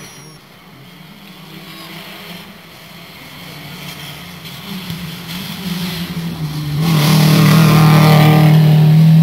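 Rally car engine approaching at speed along a dirt stage, growing steadily louder and becoming loud about seven seconds in as the car nears.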